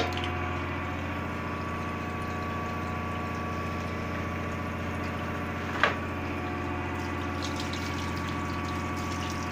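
Steady, unchanging hum of shipboard machinery running, with one short clatter about six seconds in.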